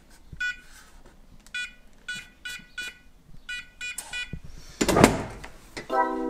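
Electronic keypad on a gun safe beeping as a code is entered: about eight short beeps. About five seconds in, a louder rushing clunk follows as the safe's handle is turned and the door opens.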